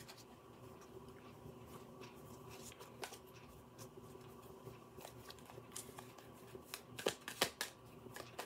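Tarot cards being shuffled by hand: faint soft clicks and slides of card on card, with a cluster of louder clicks about seven seconds in.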